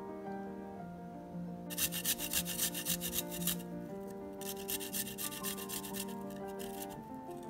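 Two runs of quick rasping strokes, about a second apart: garlic being grated onto spice-coated fish. Light background music plays underneath.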